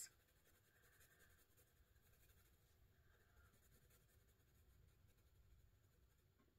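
Near silence, with the faint scratching of a colored pencil shading on paper.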